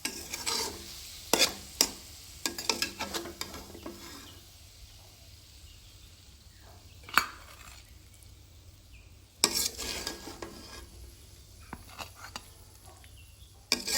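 A spoon scraping and clinking against a frying pan as cooked banana blossom stir-fry is scooped out into a bowl, in short spells with pauses between, and one sharp clink about seven seconds in.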